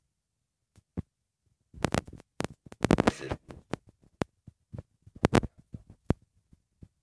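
Buttered hands working soft yeast dough for pączki: irregular sticky slaps and clicks, densest from about two seconds in and again a little past five seconds.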